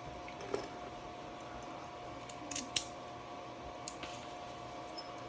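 A few short, sharp metal clicks and taps from handling a freshly picked Medeco cylinder and lock-picking tools, with a close pair of clicks about halfway through.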